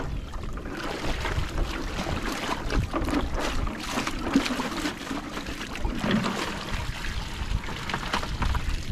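Water sloshing and splashing as a bucket of freshly dug hard clams is rinsed in salt water, with scattered small clicks and knocks throughout. Wind rumbles on the microphone underneath.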